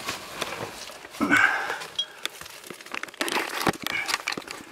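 Dry leaf litter and loose rubble crunching and crackling under someone scrambling through a cramped stone passage, with a short breathy vocal sound about a second in.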